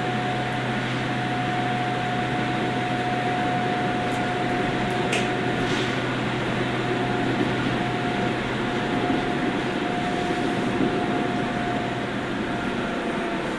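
Steady electrical hum with a held whine and fan-like hiss from a JR 103 series electric train's onboard equipment, heard inside the car while it stands without moving. A few faint clicks come about four to six seconds in.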